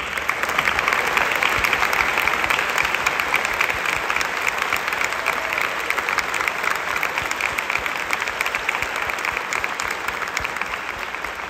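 Audience applauding: a dense clatter of many hands clapping, easing off near the end.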